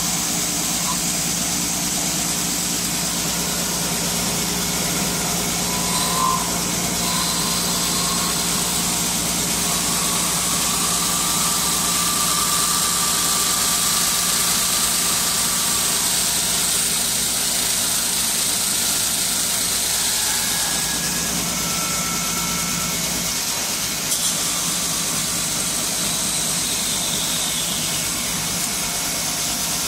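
Automatic wood-handle turning and boring lathe running steadily, its motors humming as a spinning cutter head shapes a wooden handle blank and a drill bores into its end. There are two small knocks, one about 6 seconds in and one about 24 seconds in.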